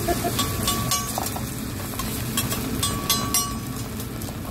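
Eggs sizzling on a hot steel teppanyaki griddle, with scattered sharp clicks and scrapes of a metal spatula on the plate.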